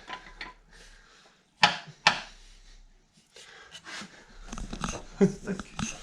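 Metal hand tools clinking and knocking as a socket and extension are fitted and handled on a harmonic balancer bolt. Two sharp knocks come close together under two seconds in, then a busier run of light clicks and rattles.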